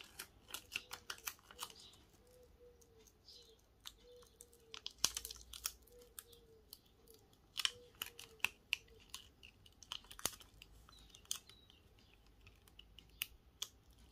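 Irregular light clicks and crackles of cut holographic vinyl being weeded, the thin plastic film picked with a metal hook tool and peeled off its backing sheet.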